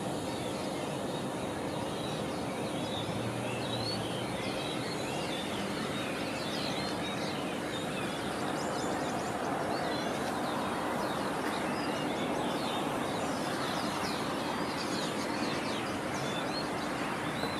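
Din of many starlings and sparrows chirping and chattering at dawn, dense overlapping calls over a steady background hum.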